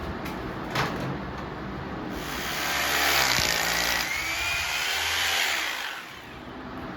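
Electric power drill running for about four seconds, starting about two seconds in, its whine rising in pitch as it spins up. A single knock comes before it.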